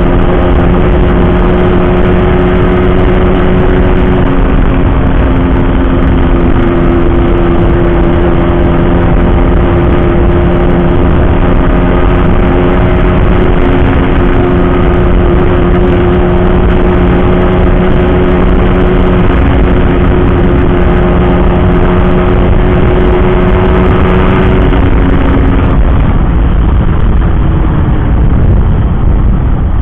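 Yamaha RX King's two-stroke single-cylinder engine running at a steady cruising pace under a loud, constant low rumble, as heard from the moving motorcycle. The engine note drops away about 25 seconds in.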